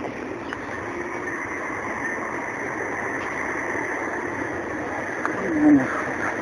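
Steady city street traffic noise, with a brief louder falling sound near the end.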